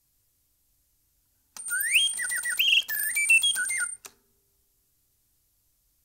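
Blaise Bontems singing-bird automaton whistling one short birdsong phrase from its bellows-blown piston whistle. It starts about a second and a half in with a rising whistle, then quick chirps and warbled notes at shifting pitches, and stops suddenly about four seconds in. A thin, steady high tone runs under the song.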